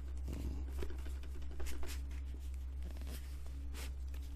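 A cardboard slipcase being handled and opened: a string of light scrapes, rustles and taps, loudest a little under two seconds in, as the inner contents are slid out, over a steady low background hum.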